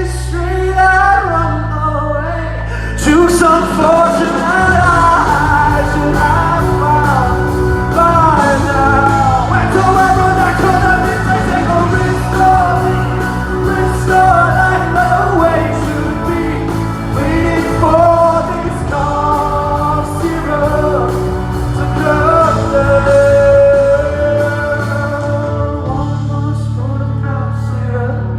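Live pop-rock song recorded at a concert: a male lead voice singing over the band, with the drums and full band coming in about three seconds in.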